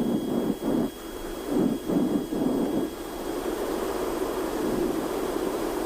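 Cozy III canard aircraft's pusher engine running at taxi power, heard from inside the open cockpit, a steady drone with a few uneven surges of noise in the first three seconds.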